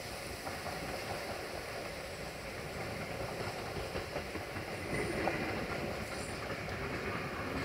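A train approaching, its running noise growing gradually louder.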